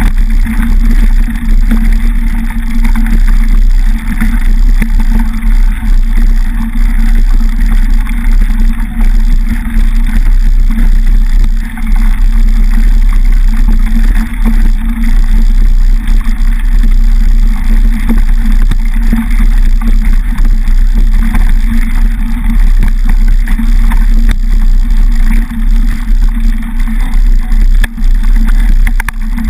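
Mountain bike rolling over a gravel dirt track, heard through a bike-mounted camera: a loud, steady rumble of knobby tyres on loose stones, with frame vibration and wind on the microphone.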